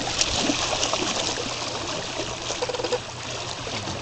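Steady water trickling and lapping over shore stones, a continuous hiss with many small irregular splashes.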